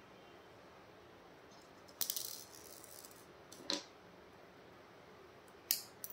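Small craft stones and beads clicking against each other and the tabletop as they are picked over: a brief rattle about two seconds in, then a single click, and two more clicks near the end.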